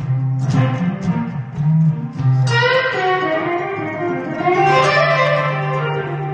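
Electric guitar playing: a few picked notes and chords, then from about two and a half seconds in a ringing run of notes over a held low note.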